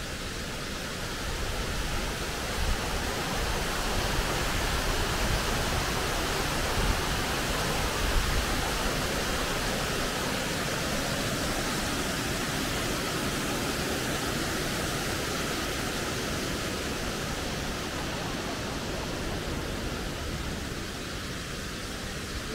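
Mountain stream rushing over boulders: a steady rush of water that grows louder a few seconds in and eases off near the end.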